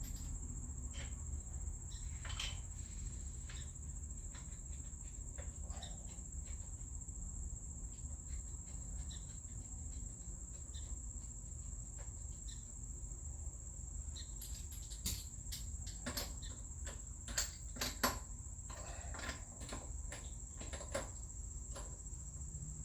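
Scattered metallic clicks and clinks as lug nuts are threaded onto a car's wheel studs by hand, growing louder and more frequent from about two-thirds of the way in. Under them runs a steady high-pitched whine and a low hum.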